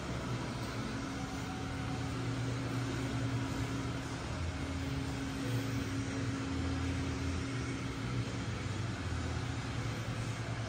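Steady low mechanical hum with a faint steady higher tone above it, unchanging throughout.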